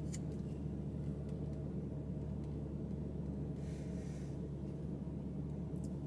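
Steady low hum inside a parked car's cabin, with a brief soft rustle about four seconds in.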